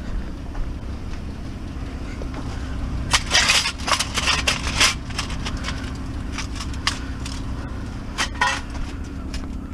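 Vehicle engine running with a steady low rumble, overlaid by bursts of clattering and rattling about three to five seconds in and again briefly near the end.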